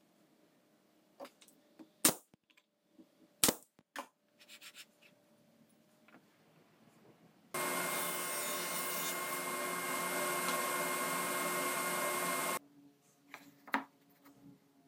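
Two sharp wooden knocks and a few lighter clicks as jig parts are handled on a table saw. Then about five seconds of the table saw running with a steady whine while it cuts a thin plywood board, starting and stopping abruptly.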